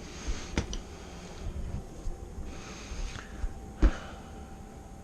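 A few light clicks and knocks from things being handled, the loudest about four seconds in, over faint room noise with a thin steady hum.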